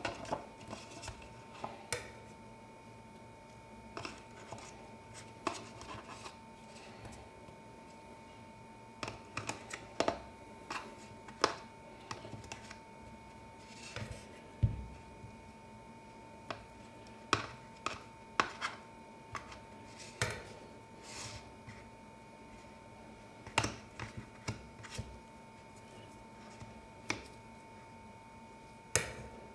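Metal tongs clicking and tapping against a steel ice cream roll plate and a paper cup as rolled ice cream is picked up and set in the cup: scattered light clicks and scrapes at an irregular pace. A faint steady hum runs underneath.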